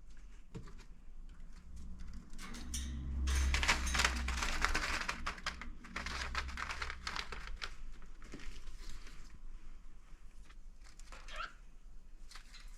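Cockatiel clambering about in a cardboard nest box: claws scratching and tapping on the cardboard, with rustling of the paper-towel lining, busiest a few seconds in.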